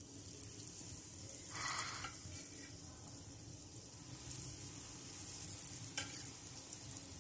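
Breadcrumbed onion rings sizzling in hot oil in a frying pan. The hiss starts suddenly as the first ring goes in and swells again from about four seconds in as a second ring is added.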